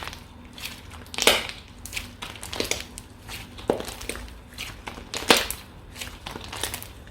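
Slime being squeezed and pressed by hand, giving irregular crunchy crackles and pops, with the loudest pops about a second in and about five seconds in.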